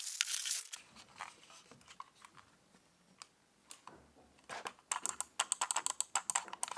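A plastic bag crinkling as a wired USB mouse is taken out of it, then scattered ticks and a quick, irregular run of small plastic clicks and rattles from the mouse and its cable being handled.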